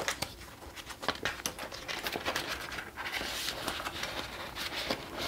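Paper and clear plastic envelope sleeves rustling as a paper tracker card and prop money are handled and slid into a cash-envelope binder pocket, with many small taps and clicks. The rustling is thickest from about two seconds in to near the end.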